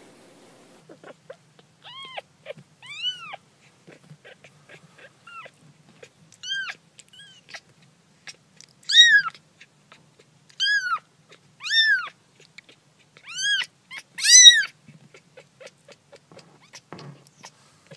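Kittens mewing: about ten short, high-pitched mews, each rising then falling in pitch, louder and closer together in the second half, with faint light ticks between them.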